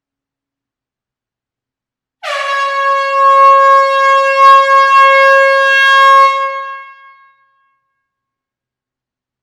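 Air horn sounding one long blast of about five seconds: a single steady, loud note with strong overtones, starting about two seconds in and fading out near the end.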